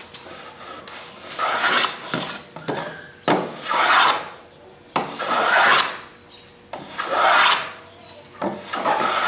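Old Stanley No. 6 fore plane, a metal-bodied hand plane, shaving the edge of a wooden board in long strokes. There are about five strokes, each a little under a second long and starting sharply, with a short pause between them.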